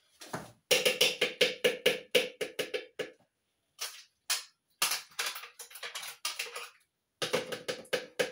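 A spoon knocking and scraping against a food container in quick repeated strikes, about four to five a second, in several runs with short pauses between them, each knock with a brief ringing tone.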